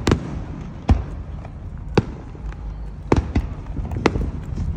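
Aerial fireworks shells bursting: about seven sharp booms, unevenly spaced, over a low rumble.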